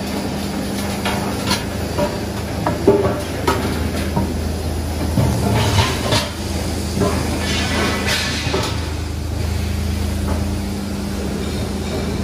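Steady low machine hum from the workshop, with scattered knocks and clatter as a rolled steel plate cylinder is handled.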